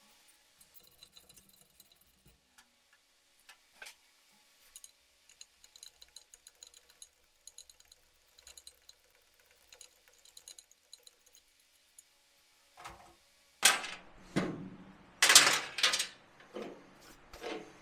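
Small metal parts jingle and tick faintly while being handled. Near the end come several loud clanks of heavier metal parts being moved and set down, with a short ring after each.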